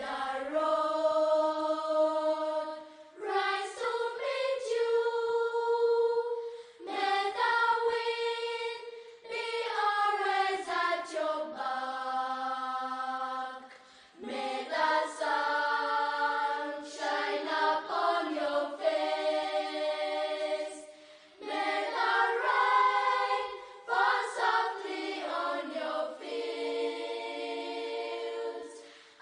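A choir singing long held notes in phrases of a few seconds, with brief breaks between phrases.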